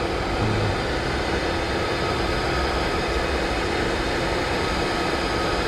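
Electric heat gun running steadily, its fan blowing a constant rush of hot air with a steady hum, shrinking heat-shrink tubing over a soldered wire splice.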